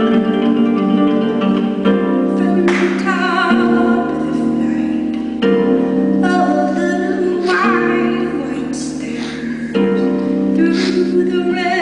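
Concert harp played in ringing plucked chords, with a woman singing over it in phrases with vibrato; the harp carries on alone between them.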